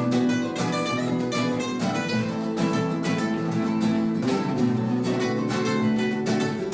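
Acoustic guitar music with rapid strummed and plucked chords, in a flamenco style.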